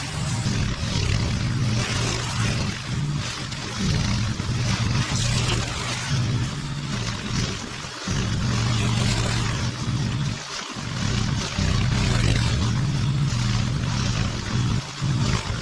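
Petrol walk-behind push mower running steadily under load as it cuts through tall, thick overgrown grass, with the engine note dipping briefly twice near the middle.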